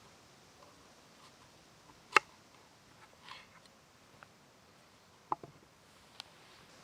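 A few sharp clicks and knocks over a quiet background: a loud one about two seconds in, another about five seconds in followed by two lighter taps, and a faint one near the end. A brief soft rustle comes just after three seconds.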